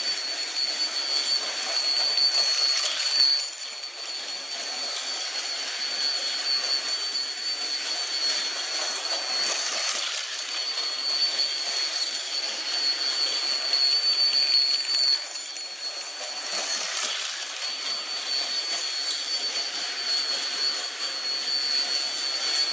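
Tyco US1 Trucking HO slot car trucks running around plastic track: a steady electric-motor buzz with a high whine, swelling three times as a truck passes close, about every seven seconds.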